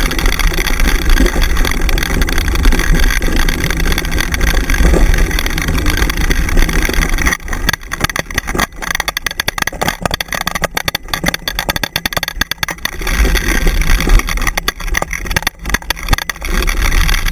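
Wind buffeting the microphone of a camera on a dryland dog-mushing rig, together with the rig's wheels rolling and rattling over a dirt forest trail at speed. About seven seconds in the sound turns choppy, with jolts and brief dropouts.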